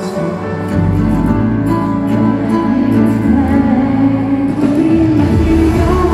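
A male K-pop singer sings live into a handheld microphone over the song's backing track, heard through an arena sound system from among the audience. A deep bass comes in about a second in.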